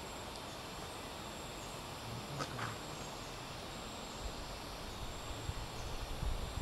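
Insects trilling in a steady high thin tone over an outdoor hush, with a brief short sound about two and a half seconds in and some low rumbling near the end.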